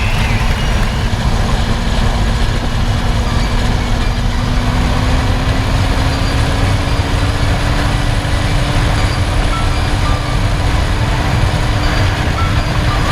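Suzuki GSR 750 inline-four engine running steadily under a heavy rushing noise, its pitch rising slowly as the bike gradually speeds up.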